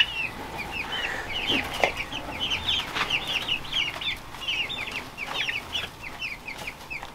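Young chickens, a few weeks old and still partly downy, peeping steadily: a rapid run of short, high chirps, several a second.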